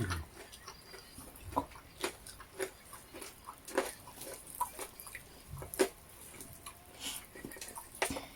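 Close-up eating sounds: irregular short smacks and clicks of chewing, a few louder than the rest, as fried chicken and noodles are eaten.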